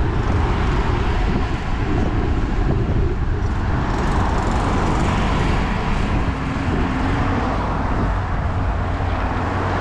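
Steady wind rush and rumble on the microphone of a GoPro mounted low on a moving fixed-gear bicycle, with tyre noise from the asphalt and street traffic mixed in.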